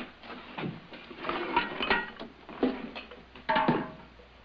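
Scattered knocks and clinks of household items being picked up and moved, some with a short metallic ring.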